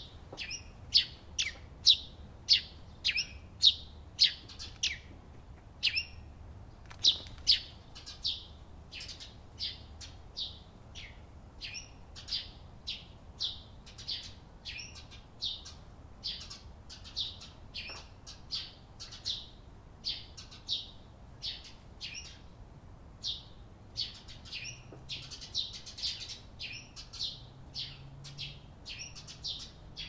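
Several Eurasian tree sparrows chirping: a steady string of short, sharp chirps, about two a second, loudest in the first few seconds.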